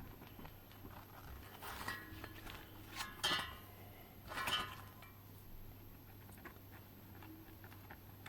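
A few light clinks and rattles of small hard objects being handled, three short bursts in the first half, over a faint steady low hum.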